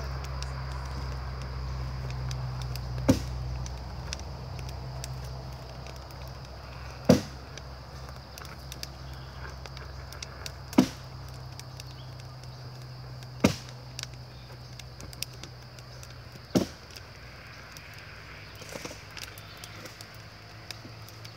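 A wood-fired bottle-neck kiln burning during a glaze firing, with a steady low rumble that fades somewhat in the second half. Five sharp knocks come a few seconds apart as the firebox is stoked.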